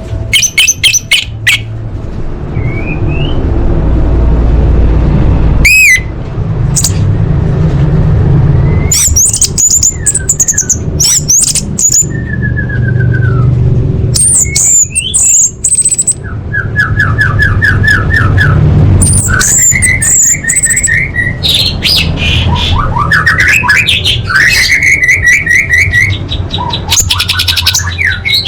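Orange-headed thrush singing a varied song full of mimicked phrases: quick trills of repeated notes, high whistles, sharp chips and gliding notes, changing every second or two, over a steady low rumble.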